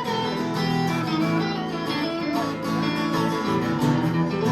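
Instrumental passage of a song between sung lines: guitars playing strummed chords under a sustained melody line.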